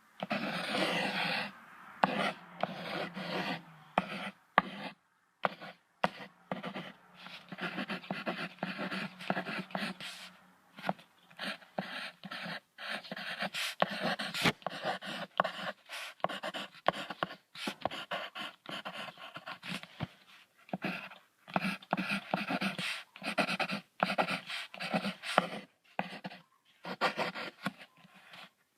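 Sea lion calling in a run of short, irregular rough barks and grunts with brief pauses between them.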